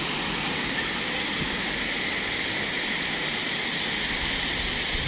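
Fountain jets spraying and splashing into a stone basin: a steady rush of falling water.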